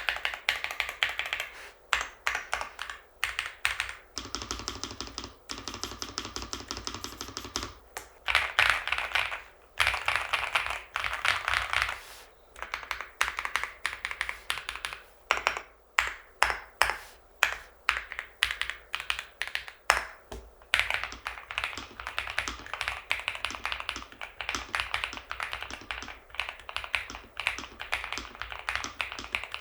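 Typing on a stock NuPhy Halo V2 mechanical keyboard with Raspberry linear switches and double-shot PBT keycaps: runs of fast keystrokes broken by short pauses, the marbly, thocky sound of a gasket-mounted board.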